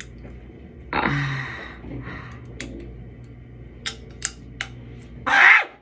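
Clear plastic Invisalign aligners being pushed onto the upper teeth, snapping into place with several small sharp clicks. A short strained vocal sound comes about a second in and a loud breath out near the end.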